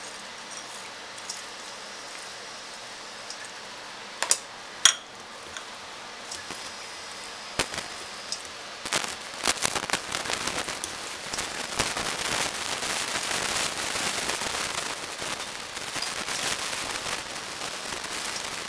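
A couple of sharp clinks about four to five seconds in as a spoon scrapes crushed pecans into the bowl, then a wire whisk beats the pancake batter, rattling quickly and unevenly against the ceramic bowl for the rest of the time.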